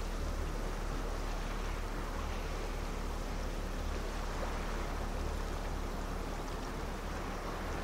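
Steady low rumble under a soft, even hiss: the distant drone of the cruise ship MSC Poesia coming in, with small waves lapping at the stone shore.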